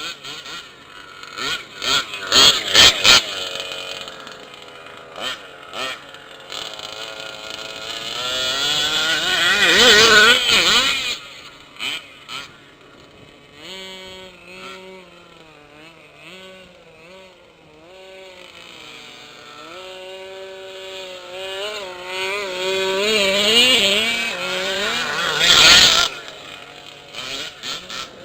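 Small two-stroke engines of 1/5-scale gas RC cars revving up and down, with long rising whines that peak about ten seconds in and again near the end. A cluster of sharp knocks comes about two to three seconds in.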